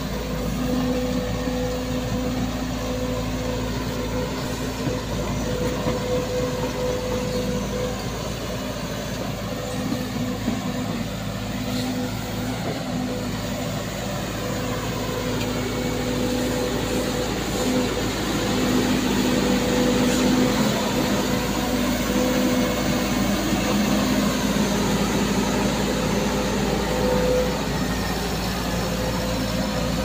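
Volvo crawler excavator's diesel engine running steadily with a constant whine, getting somewhat louder past the middle.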